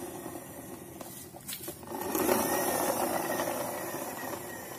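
Plastic toy Tayo bus whirring as it rolls across a concrete floor. The whir swells about two seconds in, its thin whine rising a little, then slowly fades.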